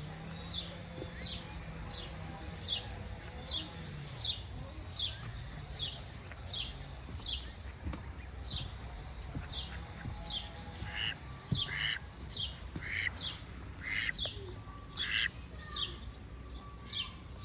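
A bird chirping over and over, a short high falling chirp a little more than once a second, with louder, fuller calls joining in for a few seconds past the middle.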